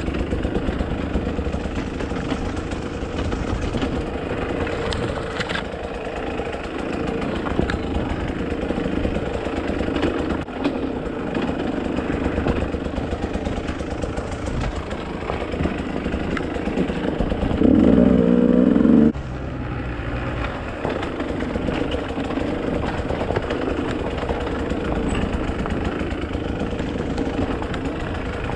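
Dirt bike engine running while being ridden, with small knocks and clicks scattered through it. About two-thirds of the way in, the throttle opens for a louder burst of a second and a half, rising slightly in pitch, then cuts off suddenly.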